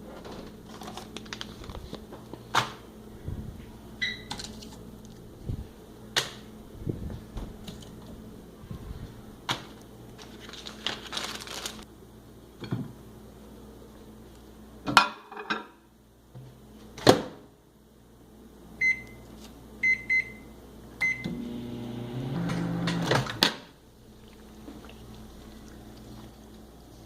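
A microwave oven runs with a steady low hum, with scattered knocks and clicks. About fifteen seconds in the hum stops and there are two sharp clicks, then a few short keypad beeps and a louder hum for about two seconds.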